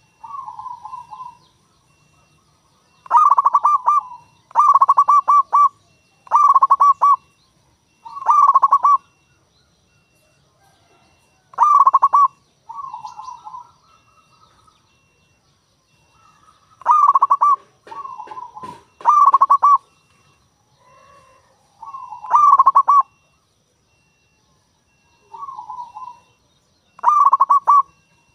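Zebra dove (perkutut) cooing: a string of short, rapid stuttering coo phrases, each about a second long, repeated with gaps of one to several seconds, some loud and some softer in between.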